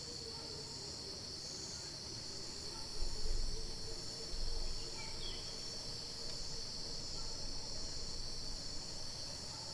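Steady high-pitched insect chorus of crickets or cicadas, with a low rumble that comes and goes from about three seconds in.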